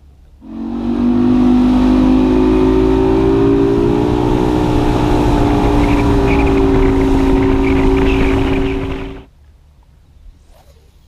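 Bass boat's outboard motor running at speed across the lake, a loud steady drone with a slight downward drift in pitch. It starts about half a second in and cuts off sharply near the end.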